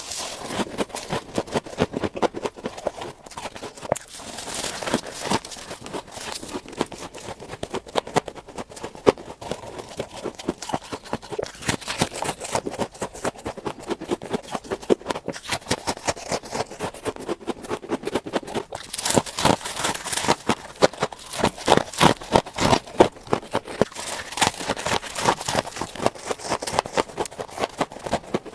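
Close-up crunching of refrigerator frost ice being bitten and chewed, a rapid run of crisp crackles and crunches, growing louder for a few seconds about two-thirds through.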